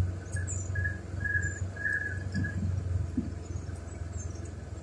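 Birds chirping in short, repeated high notes, most of them in the first two seconds, over a low steady rumble.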